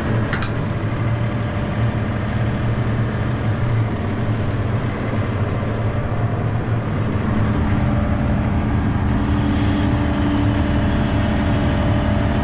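ASV RT-40 track loader's diesel engine running steadily, with a short metallic clink just after the start as the chain is hooked. From about nine seconds in, a steady high whine joins the engine.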